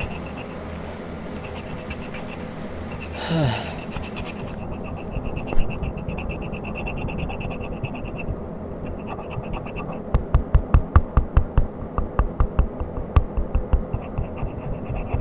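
Pencil scratching on paper while sketching, turning to quick back-and-forth shading strokes, about five a second, from about ten seconds in. A brief sound falling in pitch about three seconds in.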